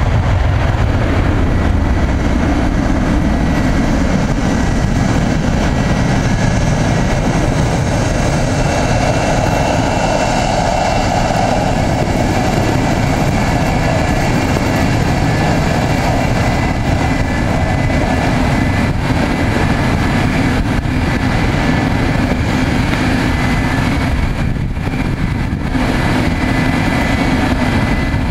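McDonnell Douglas MD-87's twin rear-mounted Pratt & Whitney JT8D turbofans running at low taxi power as the jet taxis on the apron: a steady jet roar with a thin high whine.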